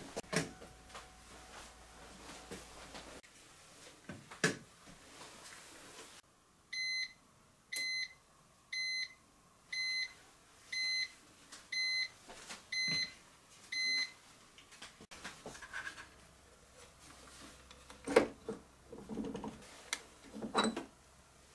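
Panasonic SD-MDX100 bread maker beeping eight times, about once a second, to signal that the bake is finished. Near the end come a few clunks as the lid is opened and the hot bread pan is gripped by its handle.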